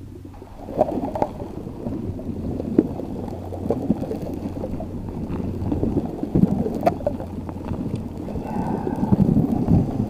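Underwater ocean ambience: a continuous muffled churn and gurgle of water, with scattered sharp clicks and a brief faint higher tone near the end.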